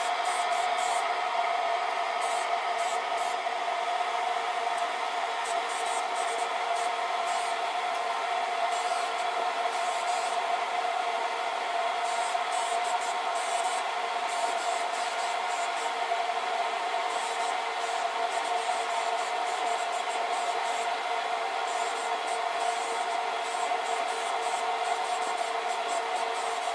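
Paint spray gun hissing in short on-and-off bursts over a steady tone. The sound begins abruptly and holds at an even level.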